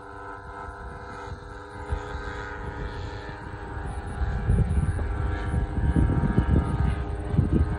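A 25%-scale Beechcraft Starship model airplane's engines drone steadily in flight overhead, a held tone with a high edge. From about four seconds in, a louder, uneven low rumble of wind on the microphone builds up under it.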